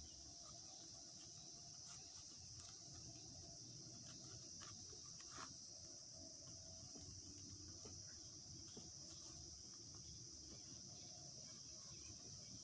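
Faint, steady high-pitched chirring of insects, with a few soft clicks and rustles from strips of young coconut leaf being pulled tight in a woven ketupat casing. The clearest click comes about five and a half seconds in.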